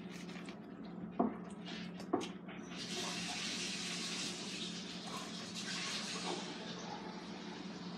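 Close-range biting and chewing of a sandwich on a crusty roll, with two sharp crunchy clicks about one and two seconds in. From about three seconds a steady rushing hiss of unclear source sets in, the loudest sound, and eases off near the end.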